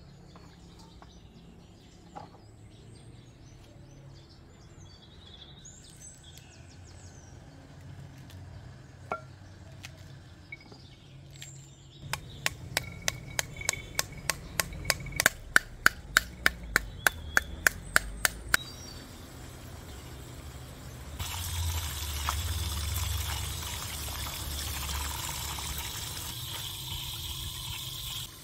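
Birds chirping faintly, then about six seconds of rapid sharp knocks, about four a second, as a halved pomegranate is beaten to knock its seeds into a glass bowl. Then water runs and splashes over fresh greens in a stainless steel colander.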